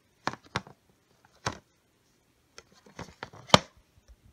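A small plastic digital alarm clock being handled: a few sharp clicks and taps of the case, the loudest a little past three seconds in as it is set down on a hard tabletop.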